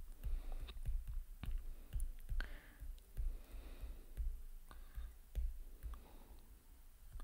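Irregular clicks and taps, each with a dull low thud, from handwriting stroke by stroke on a digital whiteboard, with faint scratchy sounds in between.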